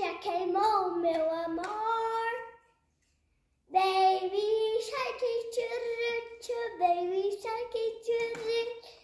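A young girl singing unaccompanied, holding notes, with a break of about a second before she carries on. A few light hand claps sound over the singing.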